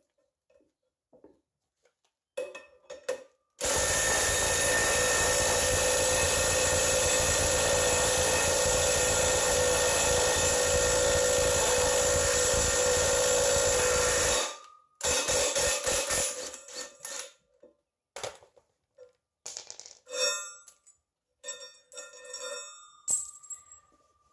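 Cordless impact wrench hammering steadily for about eleven seconds as it spins a lug nut down over a stack of washers, drawing a new ARP wheel stud into the rear axle flange. It stops suddenly and is followed by a run of short clicks and knocks.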